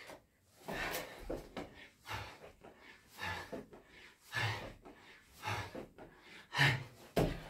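A man breathing out sharply in rhythm under exertion, about one breath a second, in time with the push-ups of a burpee, with soft thumps of hands and feet on a floor mat. The last two breaths, near the end, are the loudest.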